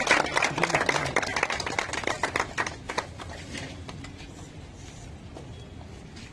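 A small group clapping by hand, dense at first and dying away after about three seconds.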